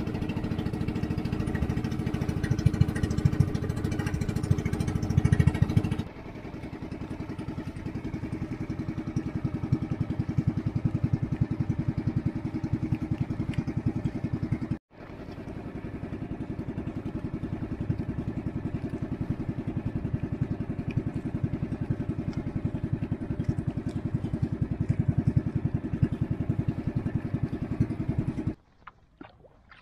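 Small engine of a wooden outrigger boat running steadily under way with a rapid, even putter. It drops in level about six seconds in, cuts out briefly halfway, and stops just before the end.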